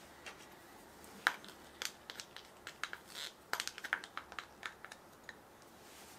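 A quick run of small, irregular clicks and crisp crackles from hands and utensils working on food, the sharpest about a second in.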